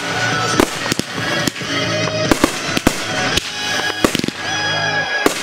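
Consumer fireworks going off in quick succession: aerial shells and cake shots banging one after another, with crackle between the reports.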